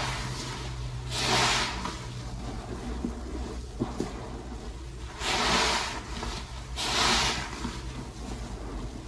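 Soap-loaded sponges squeezed by hand in thick suds: wet squelching and fizzing foam, with louder squeezes about a second in, around five seconds and around seven seconds, over a steady low hum.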